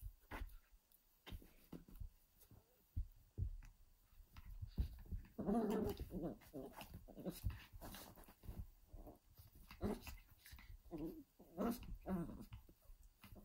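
Papillon puppies play-fighting: growling, with one longer growl about five and a half seconds in and several short growls and yips later. Soft thumps and rustling from their scuffling on the sofa cushions run alongside.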